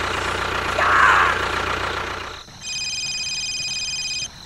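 Tractor engine running steadily, with a short, loud squeal-like cry about a second in. The engine stops about two and a half seconds in, and a steady electronic ringing of several high tones, like a phone ringtone, follows and stops near the end.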